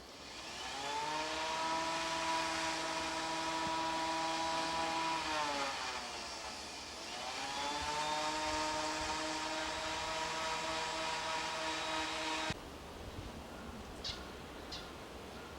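A small engine revving up to a steady high-pitched whine, dropping away about six seconds in, then revving up and holding again before cutting off abruptly near the end.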